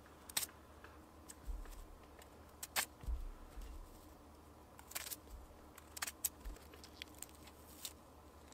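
Raw potatoes being cut in half by hand with a small knife: several short, sharp clicks as the blade goes through, spread a second or two apart, with soft handling sounds between them.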